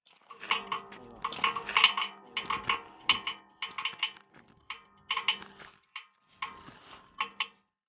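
Hammer striking steel at the shaft end of a rooftop exhaust fan motor, in quick bursts of sharp metallic taps that ring, with short pauses between the bursts.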